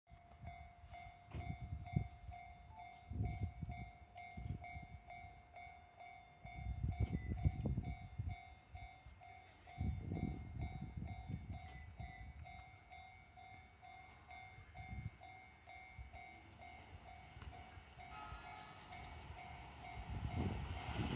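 Japanese level-crossing warning bell ringing over and over, about two rings a second, with bursts of low rumble between the rings. Near the end the ringing gives way to rising rail noise as a train approaches.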